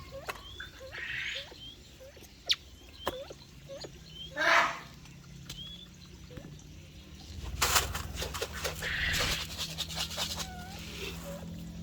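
Small aviary birds chirping and calling, with several hoarse squawks and a burst of rustling and clicking around eight to nine seconds in.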